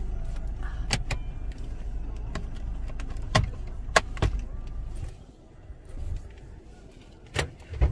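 Inside a parked car: a steady low rumble that drops away about five seconds in, with a few sharp clicks and knocks from the cabin as someone opens the car and searches it.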